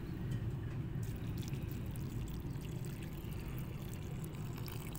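A stream of water pouring steadily into a pool of muddy water in a pit, splashing as it lands.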